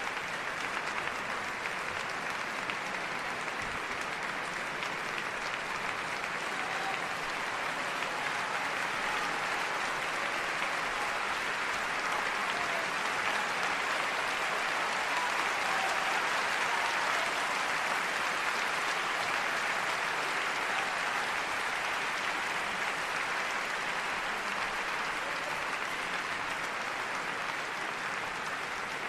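A group of people applauding, a steady dense clapping that swells a little in the middle and eases slightly near the end.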